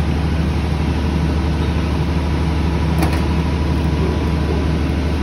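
Steady low hum of running machinery, with a faint click about three seconds in.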